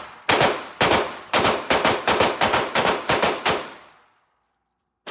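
A rapid string of about a dozen gunshots from a firearm at a shooting range. The first few come about half a second apart, then speed up to roughly four a second before stopping about three and a half seconds in. One more shot comes right at the end.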